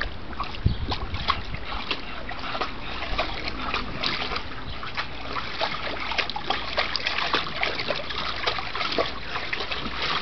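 Bulldog wading through the water of a shallow plastic kiddie pool, water splashing and sloshing with each step in a steady run of small, irregular splashes.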